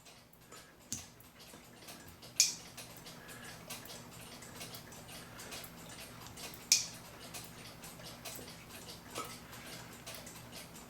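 Small clicks and taps of metal clock-movement parts being handled and fitted by hand, with sharper clicks about one, two and a half, and seven seconds in, over a faint steady hum.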